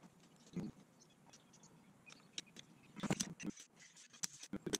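Scattered light clicks and knocks of metal hand tools and brake caliper parts being handled and set down, with a cluster of them about three seconds in.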